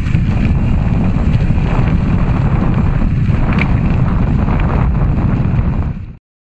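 Wind rumbling on the microphone together with tyres rolling over a gravel path as the recumbent e-trike rides at speed; at this speed the tyre and wind noise is louder than the hub motor. The sound cuts off abruptly about six seconds in.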